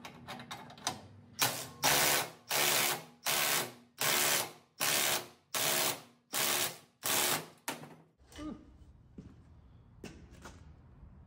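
A ratchet turning the 24 mm bolt of a Pittsburgh strut spring compressor, tightening it to squeeze the coil spring further: about nine even strokes of ratcheting, a little under a second apart, then a few lighter clanks.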